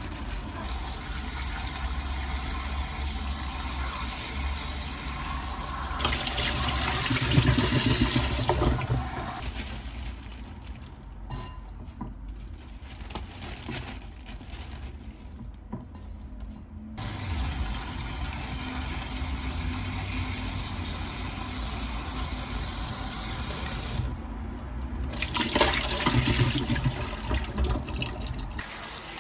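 Tap water running into a kitchen sink, swelling louder twice as the flow changes.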